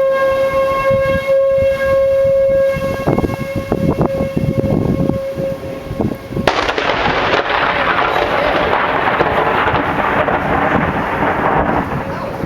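Outdoor tornado warning siren holding a steady tone. About halfway through, a sudden, loud thunderclap from a nearby lightning strike cracks and rumbles away over several seconds.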